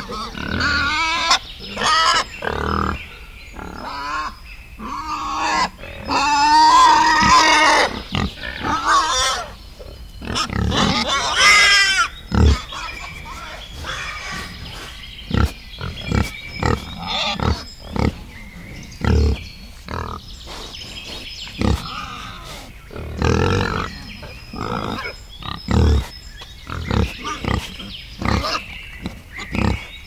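Wild boar and piglets grunting, with many short grunts throughout and longer, higher squealing calls around seven seconds in and again near twelve seconds.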